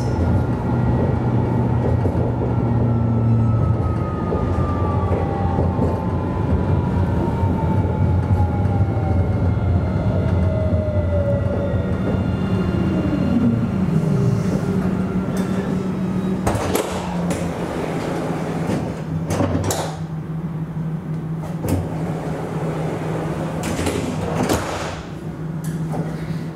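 Alstom Citadis tram's traction drive whining down in pitch as the tram brakes, sliding lower quickly as it comes to a stop. The tram then stands with a steady low hum, and a few short, sharp noisy sounds come in the second half.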